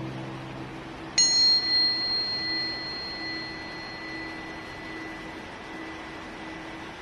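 A tuning fork struck once about a second in, ringing on with a clear high tone and a higher overtone that fades away first, over the steady hiss of a waterfall.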